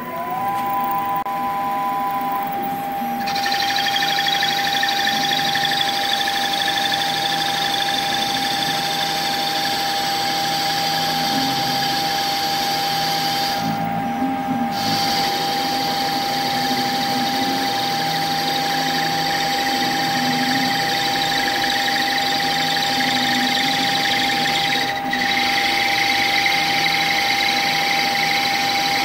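CNC lathe turning an aluminium cone. The machine's steady high whine rises in pitch right at the start as the spindle comes up to speed, then holds over the hiss of the tool cutting the aluminium. There are brief dips in the sound about 14 and 25 seconds in.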